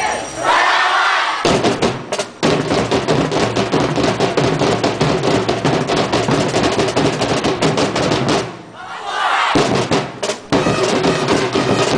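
Street-dance drum ensemble playing a fast, dense beat on many drums. The drumming breaks off near the start and again about two-thirds in, and crowd noise swells in each gap.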